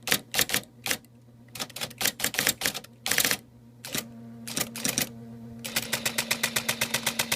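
IBM Correcting Selectric III electric typewriter being typed on: irregular bursts of typeball strikes, then a rapid even run of strikes, about eight a second, for the last part. The machine's motor hums steadily underneath.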